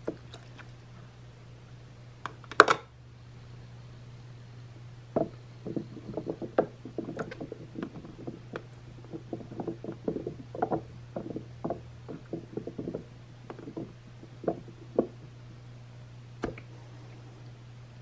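Baby carrots and a plastic spoon handled in the water of a toy play sink's plastic basin: one sharp clack about two and a half seconds in, then a run of small knocks, taps and splashes for about ten seconds, over a steady low hum.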